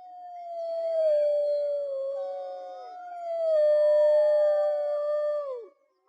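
A group of wolves howling in long, overlapping howls: a low, steady howl with higher voices gliding above it. The howls swell twice and break off together near the end, the lowest one falling away in pitch.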